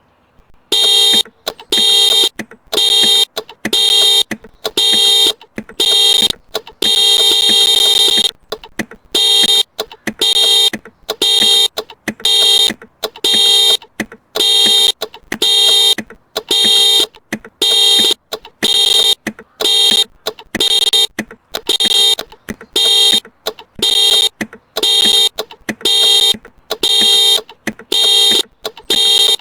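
Axxess vehicle security alarm on a 2018 Hyperion Tadashi Hybrid going off. It starts about a second in with loud, high-pitched beeping at about two beeps a second, with a longer run of quick tones about six to eight seconds in.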